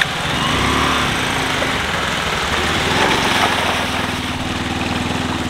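Motorcycle engine running steadily while the bike rides through a shallow stream, with water splashing up around the wheels.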